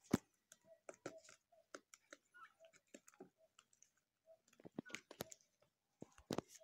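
Turkeys pecking and tearing at a crate of sprouted wheat: irregular sharp clicks and crunches of beaks in the shoots, loudest just after the start and again about six seconds in, with a few soft short calls between.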